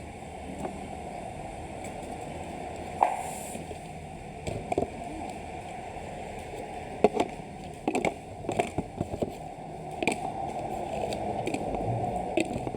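Plastic trash bin being handled: scattered sharp clicks and knocks of hard plastic parts, several in quick succession about two thirds of the way in, over a steady low background hiss.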